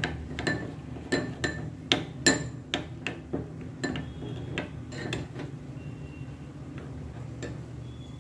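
Steel spoon stirring a spice paste in a small glass bowl, clinking against the glass about two or three times a second. The clinks stop after about five seconds, with one more near the end, over a steady low hum.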